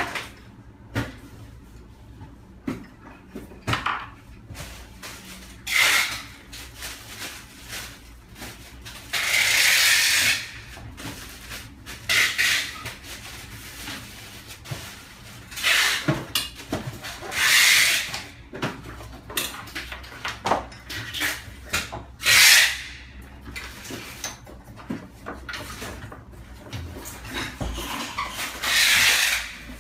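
Handling noise from stereo binocular microscopes being picked up, set down and adjusted on a table. There are scattered knocks and clicks of the heads and stands, and a number of short bursts of rubbing noise.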